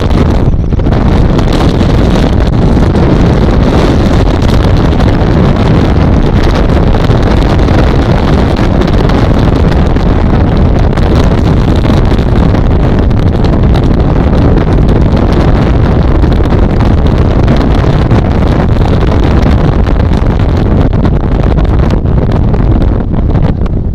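Loud, steady noise of a tour speedboat running at speed across open water, with heavy wind buffeting the microphone and spray thrown off the hull.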